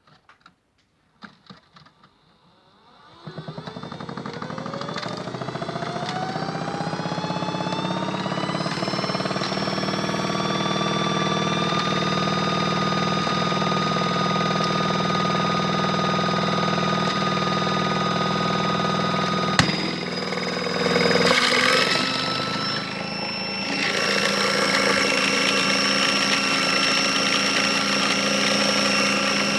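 A few clicks, then the small electric motor of a Miele W1 toy washing machine starts about three seconds in, its whine rising in pitch over several seconds as it speeds up and then running steadily. A sharp click comes near the twenty-second mark, followed by a brief noisier surge before the steady run resumes.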